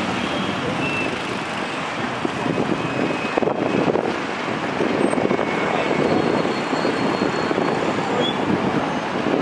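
Road traffic noise from a jammed multi-lane road: a steady rumble of many car and truck engines idling and creeping forward.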